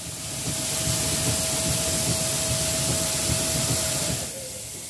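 S.A.M. grain auger running, with the hiss of grain pouring from its tube into the bin over a low rumble and a steady hum from the drive. The sound drops off sharply about four seconds in.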